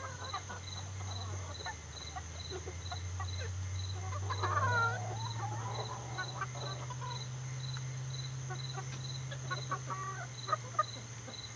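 A flock of chickens clucking softly while foraging, with one louder, wavering call about four seconds in. An insect chirps steadily about three times a second, over a steady low hum.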